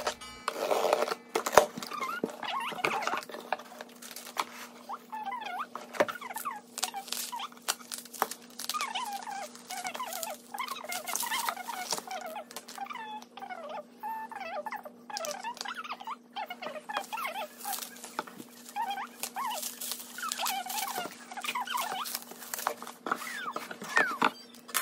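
Bubble wrap and cardboard being handled as food cans are unpacked from a box: continuous irregular crinkling, crackling and rustling, over a faint steady hum.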